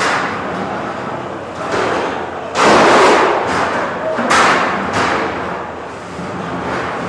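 Featherweight combat robots colliding: a series of hard impacts and thuds, the two loudest about two and a half and four and a half seconds in.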